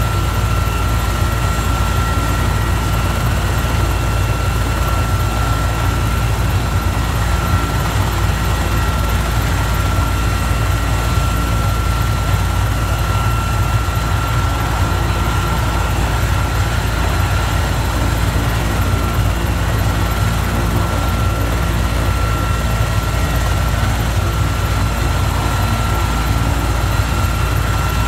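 Sikorsky/Erickson S-64 Air-Crane heavy-lift helicopter running on the ground with its rotors turning: a steady, loud beat of rotor and turbine noise with a constant high whine over it.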